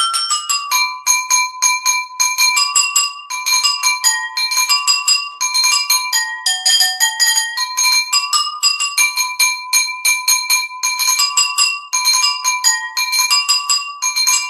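Bell-like ringtone melody: quick chiming notes struck several times a second in short, repeating phrases, all high with no low notes.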